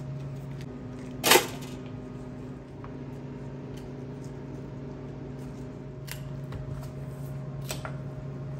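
Knife work while butchering a whole chicken on a cutting board: one sharp knock about a second in, then a few light clicks later, over a steady hum.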